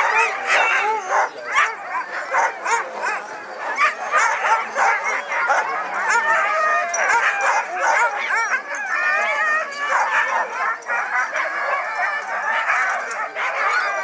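A yard full of sled dogs barking, yelping and howling all at once: a dense, unbroken chorus of many short high calls overlapping one another. This is the excited clamour of sled dogs at harnessing time before a run.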